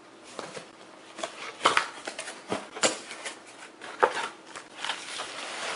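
Cardboard and packaging being handled during an unboxing: irregular rustling and scraping with sharp clicks and knocks, the loudest about 1.7, 2.9 and 4 seconds in.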